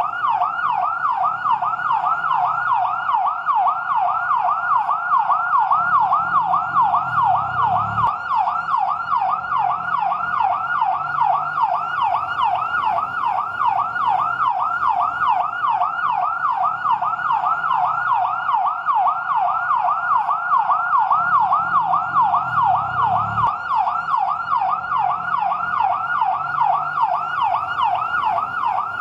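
Fire truck siren in yelp mode: a fast, steady up-and-down wail, about three sweeps a second, repeating without a break. A faint low rumble underneath swells and cuts off abruptly twice.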